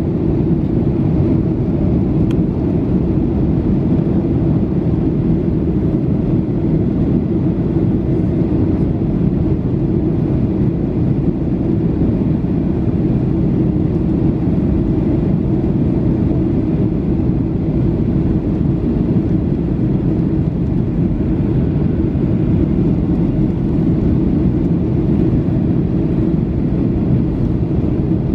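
Steady cabin roar inside a Boeing 737-800 airliner on approach: the hum of its CFM56-7B jet engines mixed with airflow over the fuselage, heard from a window seat near the wing. The noise sits low, with a steady droning hum in it.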